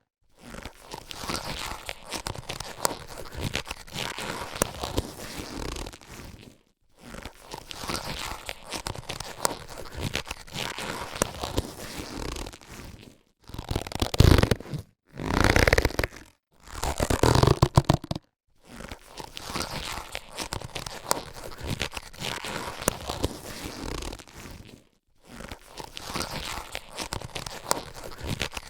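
Latex surgical gloves being handled, giving a crackly, rubbery rustle in several runs of a few seconds split by brief pauses. Two louder runs come a little past the middle.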